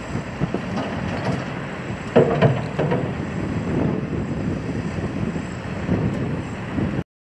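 Wheel loader's diesel engine running as it empties garbage from its bucket into a steel roll-off dumpster. About two seconds in, a loud clatter of debris hitting the container lasts under a second. All sound cuts off just before the end.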